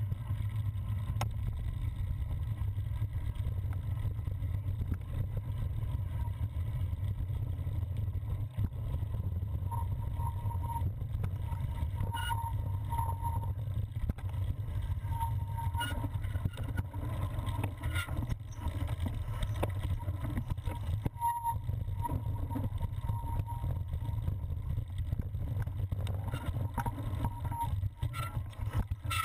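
Steady low rumble of wind and trail vibration on a handlebar-mounted action camera as a cyclocross bike is ridden over a dirt forest singletrail, with scattered rattles and clicks.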